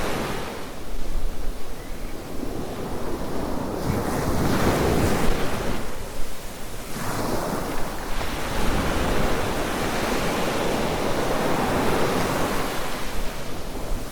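Waves breaking and washing up a sand beach. The surf swells and falls back in surges a few seconds apart.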